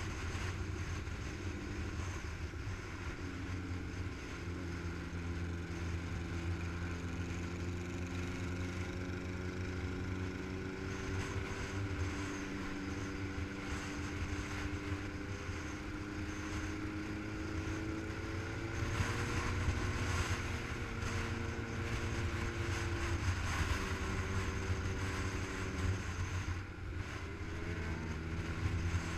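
Motorcycle engine running steadily at highway cruising speed, with wind noise on the microphone. The engine note drifts slightly and dips briefly near the end before rising again.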